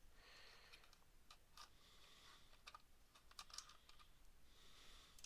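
Near silence with faint, irregular small clicks: needle-nose pliers working on small plastic and rubber toy parts.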